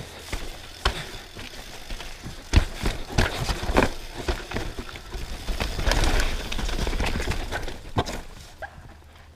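Downhill mountain bike rolling over rough rocky trail: irregular sharp knocks and clatter from tyres and frame over a noisy rumble that swells in the middle and fades near the end.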